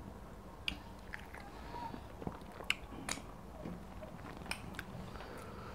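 Close-up mouth sounds of eating fufu with slimy ogbono soup by hand: chewing with scattered sharp, wet smacks and clicks at irregular intervals.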